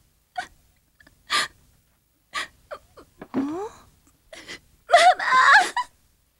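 A young woman crying: short gasping sobs about once a second, then a loud wailing cry about five seconds in.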